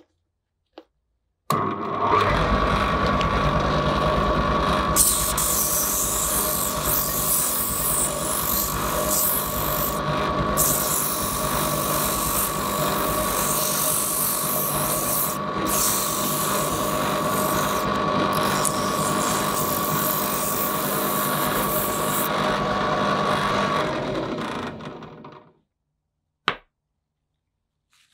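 Bench drill press motor starting and running steadily, spinning a wooden handle while sandpaper is held against it: a steady whine and hum with the hiss of sandpaper on the turning wood. The motor winds down near the end, followed by a single click.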